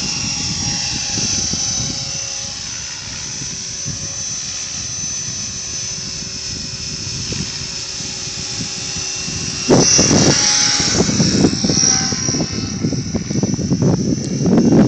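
Small electric motor of a radio-controlled model aircraft whining steadily as it flies, with wind rumbling across the microphone. The wind gets louder about ten seconds in and again near the end.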